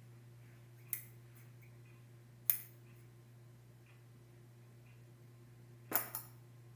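Small scissors snipping the thread ends from a machine-sewn button: a few short, sharp snips, the loudest about two and a half seconds in and a quick pair near the end.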